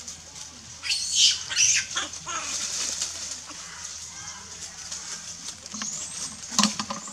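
Long-tailed macaques squealing: a cluster of shrill, high-pitched calls about a second in and another short call near the end, over a steady high hiss.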